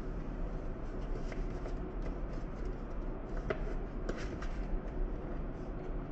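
Light rustling and small taps of hands handling paper price labels on cardboard shoe boxes, a cluster of them around the middle, over a steady low room hum.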